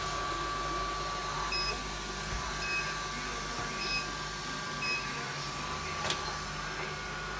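REDMOND RV-R560 robot vacuum cleaner running with a steady hum, giving four short electronic beeps about a second apart, then a single click.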